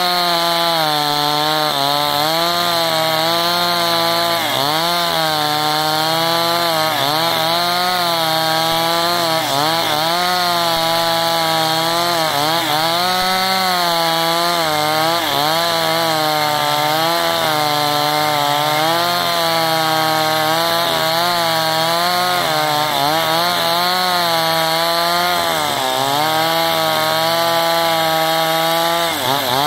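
Two-stroke chainsaw ripping lengthwise along a log of very hard wood, held near full throttle, its engine pitch sagging and recovering every second or two as the chain loads up in the cut, with a deeper dip near the end.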